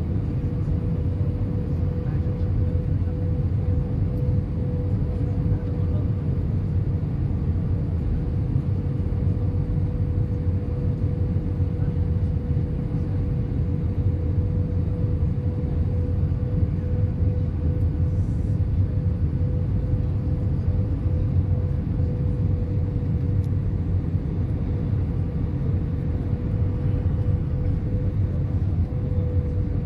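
Airbus A320 cabin noise on final approach, heard inside the cabin: a steady low rumble of engines and rushing air, with a steady humming tone above it.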